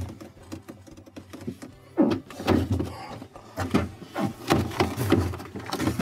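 Plastic air tower panel in a refrigerator freezer clicking and knocking as its side clips are pressed in and it is worked loose from the back wall. Irregular clicks and knocks start about two seconds in.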